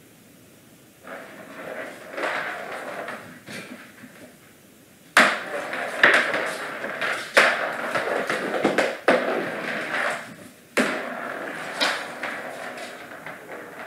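A small hard plastic toy ball rolling and rattling, batted about by a bobcat kitten, with several sharp clacks where it is struck or hits something. It starts softly about a second in and gets louder about five seconds in.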